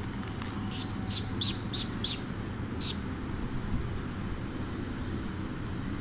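Alexandrine parakeet giving a quick run of about six short, high chirps over two seconds, then falling quiet, over a steady low hum.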